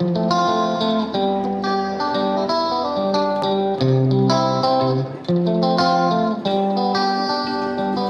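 Background instrumental music: plucked-string notes over chords, each note struck sharply and fading, in an even rhythm.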